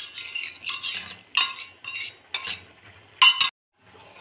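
Steel ladle stirring milk in a metal kadhai, scraping and clinking against the pan in a run of short, sharp knocks. The sound cuts out for a moment near the end.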